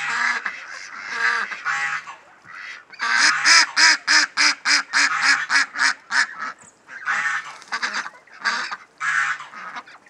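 Domestic ducks quacking repeatedly, with a fast run of about fifteen quacks at roughly four a second through the middle.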